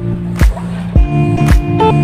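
Background music with a steady beat, about two drum strokes a second under held pitched notes.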